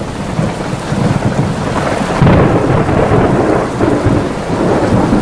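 Thunderstorm recording: steady heavy rain with thunder rumbling underneath, swelling louder about two seconds in.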